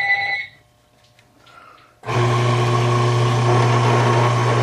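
A telephone ring cuts off about half a second in. About two seconds in, the electric drill motor of a home-built clock-plate rebushing machine is switched on by foot pedal and runs steadily with a strong low hum.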